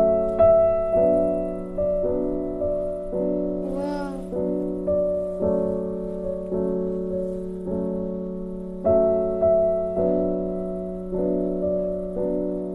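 Background piano music: a slow melody of struck notes, each fading away, about one or two a second over a held low note.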